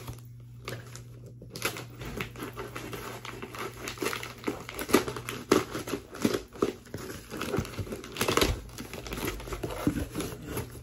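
Cardboard box being cut open and unpacked: packing tape slit and torn, with cardboard flaps and packing paper rustling and crinkling in many short, irregular sounds, mostly from about two seconds in.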